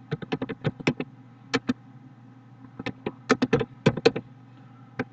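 Typing on a computer keyboard: quick runs of keystrokes, with a pause of about a second near the middle, over a faint steady hum.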